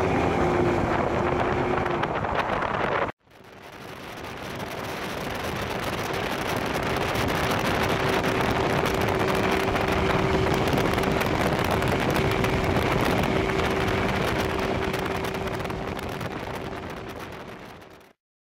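Mercury 200 outboard motor running at planing speed, a steady drone under heavy wind buffeting on the microphone and the rush of water from the wake. The sound cuts out sharply about three seconds in, swells back, and fades away near the end.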